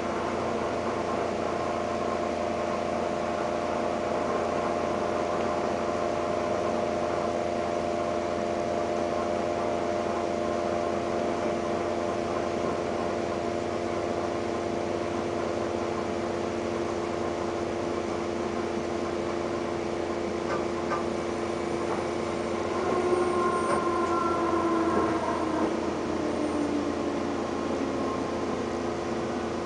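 Steady running noise of the Seibu limited express 'Koedo' train heard inside the passenger car, with a steady motor whine over the rumble of the wheels. A little over twenty seconds in, the whine slides down in pitch and the noise grows louder for a few seconds.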